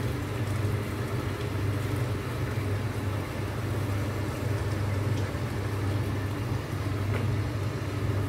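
A steady low hum of a motor or engine running.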